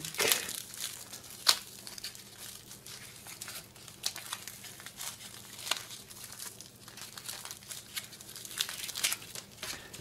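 Clear plastic wrapping crinkling as it is pulled off a small package by hand, with irregular sharp crackles, the loudest about one and a half seconds in.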